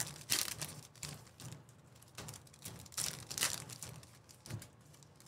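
Crinkling and rustling of foil trading-card pack wrappers and cards being handled, in a string of short irregular bursts.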